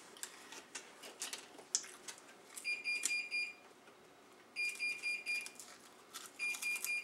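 Digital timer alarm beeping in quick runs of high beeps, three runs about two seconds apart, signalling that the one-minute time is up. Before it, faint crunching of dry saltine crackers being chewed.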